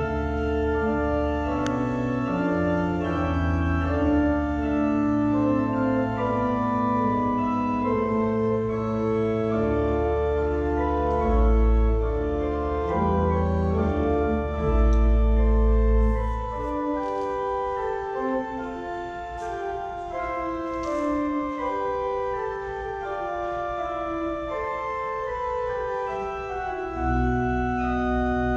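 Church organ playing slow, sustained chords over a deep pedal bass. The pedal bass drops out a little past the middle and comes back near the end.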